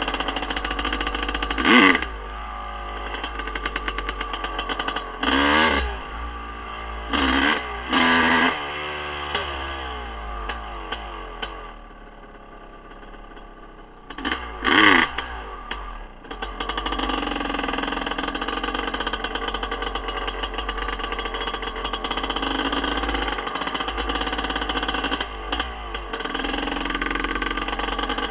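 Freshly rebuilt two-stroke dirt bike engine on its break-in ride, heard from an on-board camera. It revs up in several short loud bursts, eases off to a quieter run for a couple of seconds near the middle, then pulls steadily.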